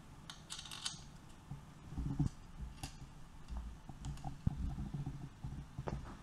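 Light, scattered clicks and small metal handling noises as hands fit and adjust a motorcycle's front brake cable and lever arm at the wheel hub, over a low, uneven rumble of handling.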